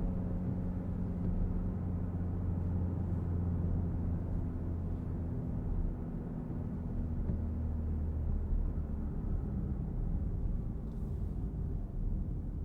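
Citroen C5 Aircross's 1.5-litre diesel engine running at a steady speed under a low road rumble, heard from inside the cabin. The engine note fades somewhat about eight seconds in.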